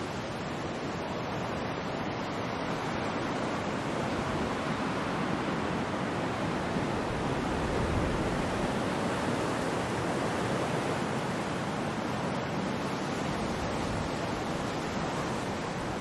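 Ocean surf washing ashore: a continuous rushing wash of breaking waves that swells a little around the middle and eases off again.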